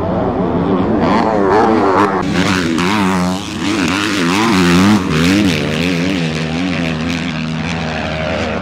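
Four-stroke 250 motocross bike engine racing hard, its pitch swinging rapidly up and down as the throttle is worked over rough ground.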